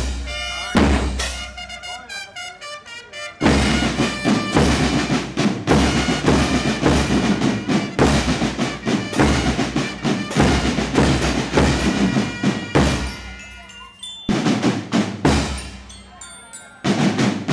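Marching band percussion section of snare drums, bass drums and crash cymbals playing a march cadence. The drumming is lighter for the first three seconds, then comes in hard with cymbal crashes, eases off briefly twice in the second half and comes back loud near the end.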